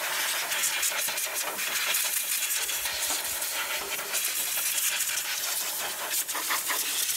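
Compressed air hissing from an air-hose blow gun, blowing trash out of a mower engine's carburetor and linkage area; a continuous, wavering hiss.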